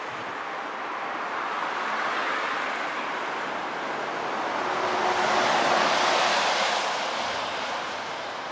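Road traffic passing on a bridge roadway: a steady rush of tyre noise with wind, swelling as vehicles go by, loudest a little past halfway.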